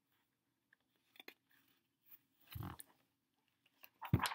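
Handling of a hardcover picture book: a few faint clicks, a short rustle, then a page being turned near the end with a quick swish and flap of paper.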